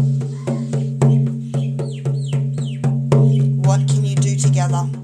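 Hide frame drum beaten in a steady, fast journey rhythm, about five beats a second with some harder accents, its deep tone ringing on between strokes: shamanic journey drumming.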